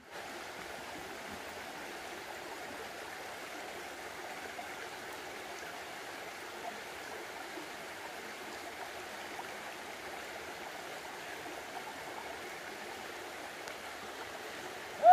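Shallow rocky mountain stream running over stones: a steady, even rush of water.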